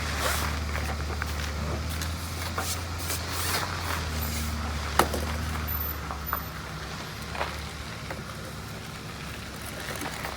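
Light clicks and knocks of gutter-vacuum pole fittings being handled and fitted together, the sharpest click about five seconds in, over a steady low hum.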